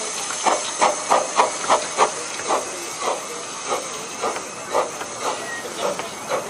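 15-inch gauge steam locomotive pulling away, its exhaust chuffing about two to three beats a second over a steady hiss of steam.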